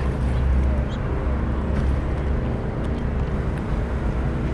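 A steady engine hum with a rushing noise over it.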